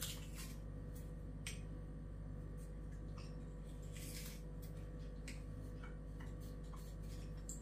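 Scattered light clicks and small crunches of a hand-held metal garlic press squeezing garlic cloves into minced meat, irregularly spaced, with a slightly longer scratchy crunch about four seconds in. A steady low electrical hum runs underneath.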